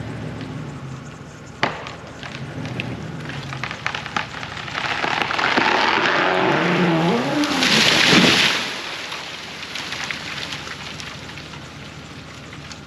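Large oak tree falling: a sharp crack from the hinge wood and further snapping, then a swelling rush of branches and leaves through the air that ends in a loud crash into the ground about eight seconds in. An engine runs steadily underneath at the start.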